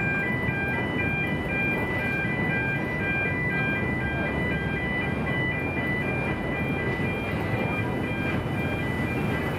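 Steady rushing rumble of a large ferry under way, with a repeating pattern of short high electronic tones stepping between a few pitches over it.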